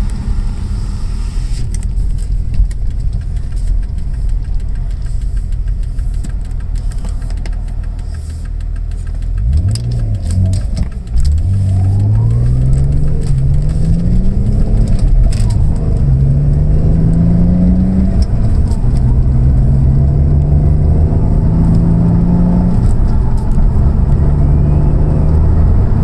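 2001 Audi S4's 2.7-liter twin-turbo V6 heard from inside the cabin, first running evenly at low speed, then accelerating hard from about ten seconds in. The engine note climbs, drops back at each upshift, and climbs again several times.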